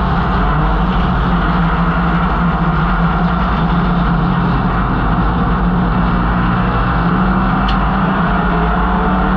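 1968 MGB GT race car's 1.8-litre B-series four-cylinder engine running hard at a fairly steady pitch under racing load, with wind and road noise over it. A brief sharp click comes about three-quarters of the way through.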